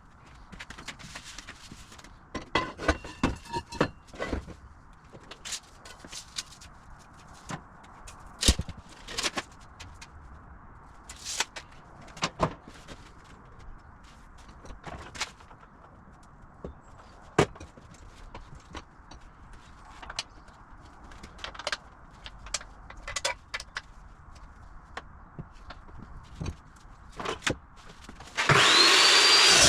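Scattered knocks and clicks of workshop handling. Near the end, a power tool's motor starts and runs loudly with a rising whine as it spins up.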